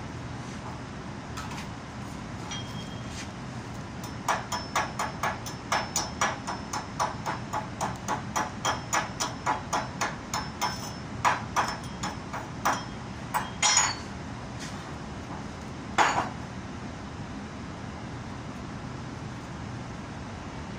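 A hammer striking the welded cast iron flange in quick, even blows, about three a second, with a high metallic ring. The blows start about four seconds in and stop near fourteen seconds, and one louder single strike follows a couple of seconds later.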